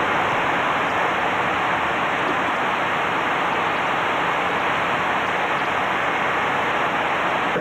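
Steady rushing noise on the flight deck of a USAF KC-135 tanker: jet engine and air noise blending into an even, unbroken hiss.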